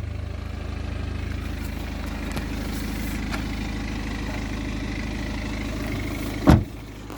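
BMW 318d's 2.0-litre four-cylinder turbo diesel idling steadily, heard from inside the car. A single loud thump comes near the end, after which the idle sounds quieter.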